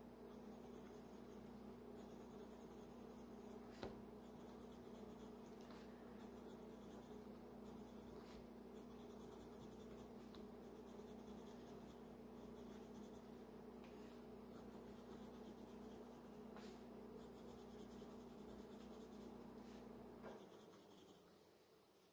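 Faint scratching of a colored pencil on drawing paper, drawing short strokes of grass. Under it runs a steady low hum that fades out near the end.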